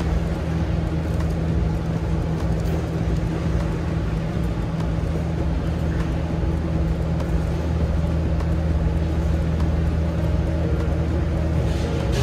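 Steady car engine and road noise, an even low hum that holds without change.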